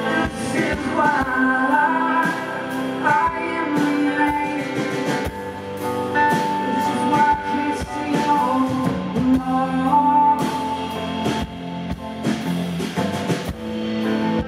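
Live band music: a woman singing long held notes over drums, electric guitar and keyboard.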